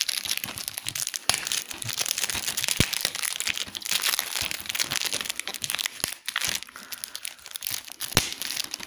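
Plastic shrink wrap being torn and peeled off a DVD case, crinkling and crackling throughout, with a few sharp clicks.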